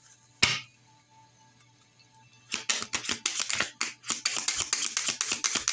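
A single sharp click about half a second in, then a quiet pause, then tarot cards being shuffled: a dense run of rapid clicks from about halfway through.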